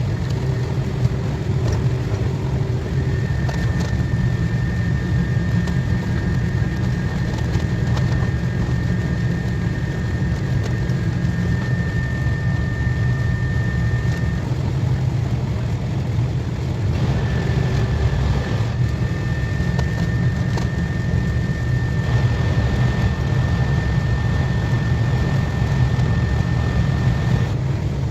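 KTX high-speed train running at speed: a steady, loud rumble with a high, steady whine that holds for about ten seconds, drops out briefly, then returns for another ten seconds.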